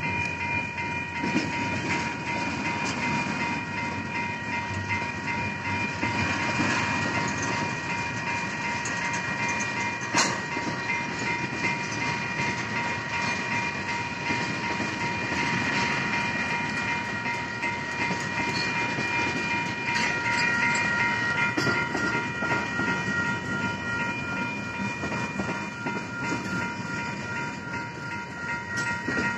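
Freight train of tank cars rolling slowly through a grade crossing, its wheels rumbling and clacking over the rails, with a sharp clank about ten seconds in. Over it the crossing signal's bell rings in steady high tones.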